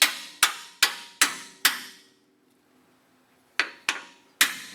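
Hammer blows driving a steel bolt through the lower control arm mount, metal on metal with a ringing edge. Five quick strikes, a pause of about two seconds, then three more.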